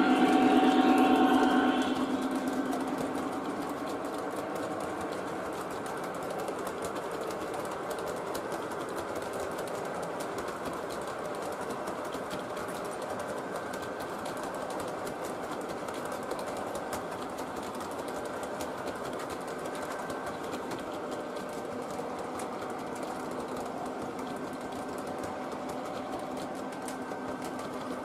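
O gauge model freight train's hopper cars rolling along three-rail track: a steady whirring clatter of wheels on the rails. For the first two seconds a louder pitched sound from the passing Conrail diesel locomotive is on top, then fades as it moves off.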